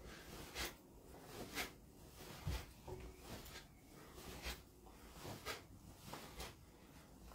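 Faint, soft puffs and rustles about once a second from a person moving through slow kung fu forms in a quiet small room.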